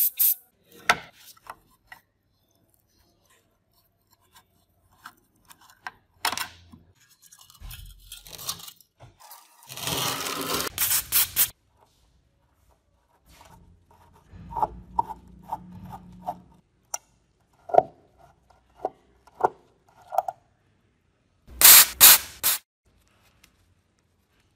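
Screwdriver working at rusted steel screws in a mechanical scale's casing: metal-on-metal scraping and grinding in separate bouts as the bit bites and turns, with scattered clicks and two louder harsh scrapes.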